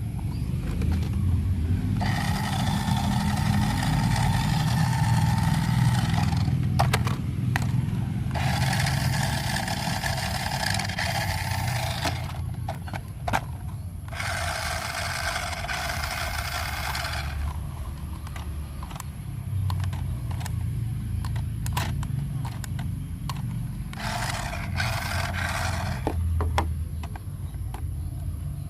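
Electronic horn tone sounding in four long blasts of a few seconds each, over a steady low rumble.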